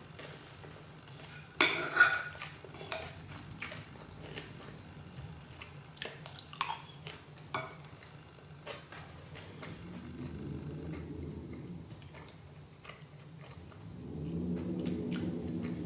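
Chopsticks clicking and scraping against a ceramic plate while food is picked up and chewed, with a few sharp clicks about two seconds in and scattered lighter taps after. A low hum rises near the end.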